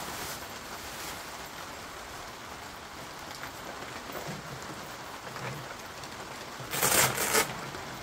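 A steady hiss of rain, and about seven seconds in a short, loud rustle of packaging being handled.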